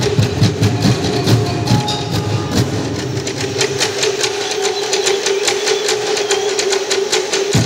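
Live Bukidnon folk music on drums and percussion: deep beats on tall standing drums and sharp clicking strokes over a steady held tone. The deep drumming drops away about halfway, leaving the clicks and the tone.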